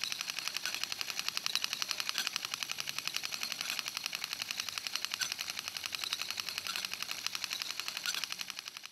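Film projector running, a fast, even mechanical clatter of about ten clicks a second.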